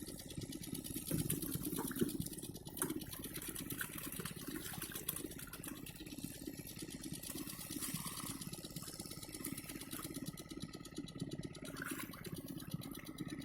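Small engine-driven water pump running steadily with a fast, even mechanical chatter, with water rushing and splashing through it.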